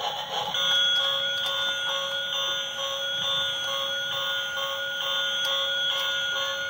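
Battery-powered toy train's electronic sound chip starting about half a second in, playing a steady, alarm-like electronic tune with a beep repeating about twice a second.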